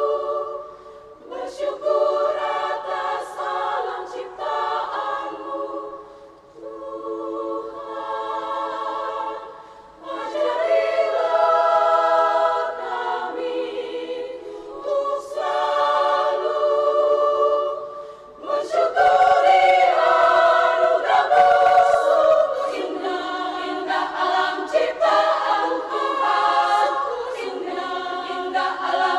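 Women's choir singing a cappella in sustained chords, phrase by phrase with short breaths between, growing fullest and loudest about two-thirds of the way through.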